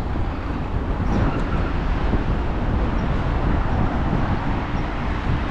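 Steady low rumble and hiss of a moving vehicle, with no distinct tones or knocks.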